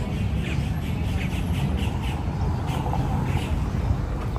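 Birds giving short, repeated calls, several in quick succession, over a steady low rumble of street noise.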